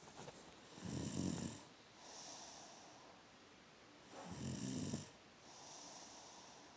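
A person snoring in her sleep with a pig-like snore: two loud snoring breaths about three and a half seconds apart, each followed by a softer, breathy one.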